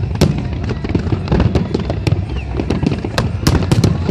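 Fireworks display going off in a quick, irregular string of sharp bangs and crackles, roughly three a second, over a continuous low rumble.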